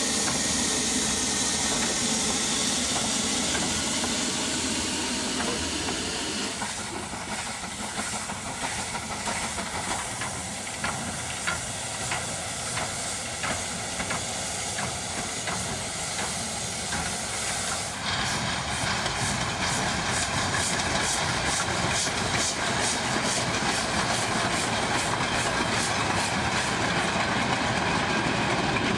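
Small steam tank locomotive hissing steam, then moving off slowly with scattered clanks and knocks. About two-thirds of the way through, a louder steady hiss with a rapid, regular beat sets in as the train rolls past.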